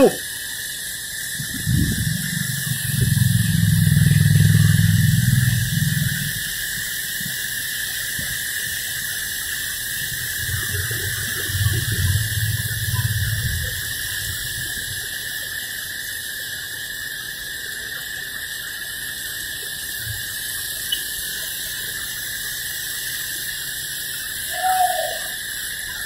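Heavy rain falling with a steady hiss, while vehicles pass on the wet road; an engine's hum swells up twice, once in the first few seconds and again about halfway through.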